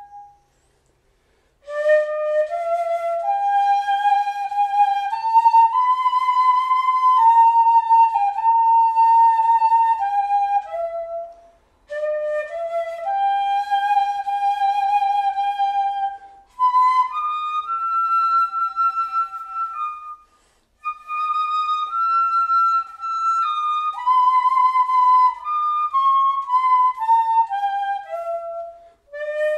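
Wooden end-blown flute made from a tree branch, playing a slow melody of held notes that step up and down. The phrases are broken by short pauses.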